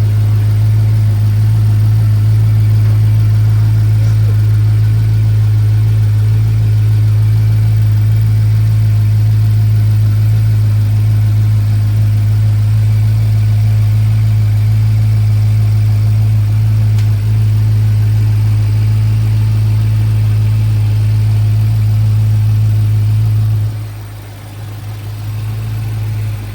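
Twin-turbo V8 of a 2014 BMW M5 Competition idling steadily, shortly after its first start following the rebuild. Near the end the sound drops off sharply and then partly comes back.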